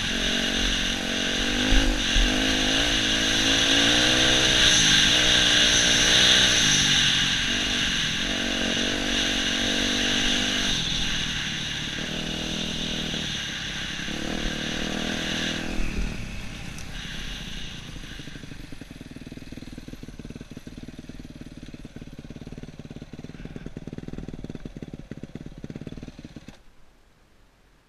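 Yamaha YZ250F dirt bike's four-stroke single-cylinder engine revving up and down with the throttle while riding. About halfway through it settles lower and quieter, and near the end the sound drops away abruptly.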